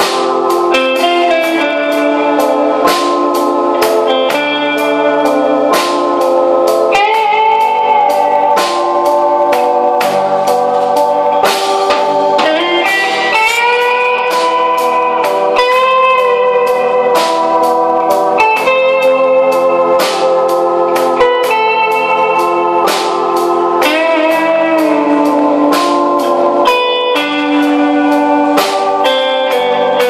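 Live rock band playing an instrumental: an electric lead guitar carries a sustained melody with bends and slides, over bass, rhythm guitar and a steady drum beat.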